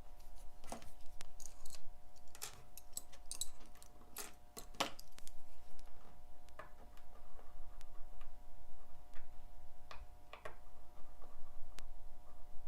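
Small metal watchmaker's tools clicking and tapping irregularly against watch movement parts during servicing, over a faint steady hum.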